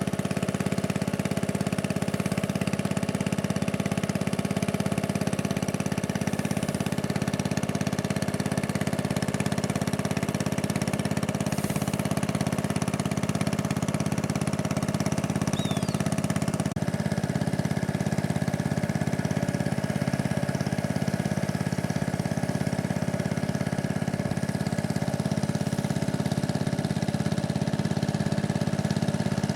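Motorboat engine running steadily under way, a constant drone; its tone shifts slightly a little over halfway through.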